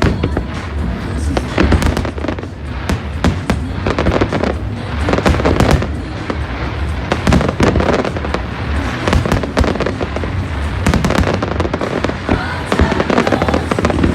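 Aerial fireworks display: shells bursting and crackling in rapid succession, dense and continuous, with music playing underneath.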